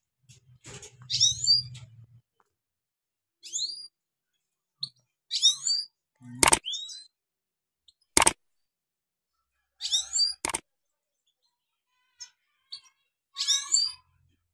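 European goldfinch giving short twittering call phrases, bursts of quick high chirps a couple of seconds apart. Three sharp clicks fall among them.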